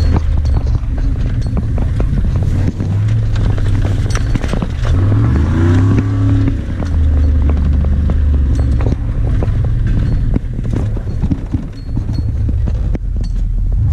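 Pickup truck heard from inside the cab while driving a rough dirt track: the engine note steps up and down and climbs once about five seconds in, under many knocks and rattles from the cab jolting over bumps.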